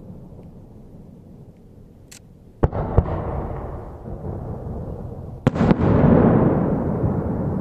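Aerial firework shells bursting: two sharp booms about two and a half and three seconds in, then a louder cluster of bangs past the five-second mark. Each burst trails off into a long, rolling low rumble.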